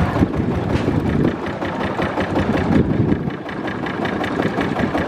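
Long-tail boat's engine running steadily at low speed, a rapid even chugging.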